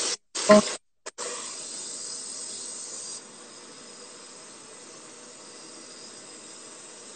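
Water running from a turned-on tap, a steady hiss that starts about a second in and drops a little in level a couple of seconds later.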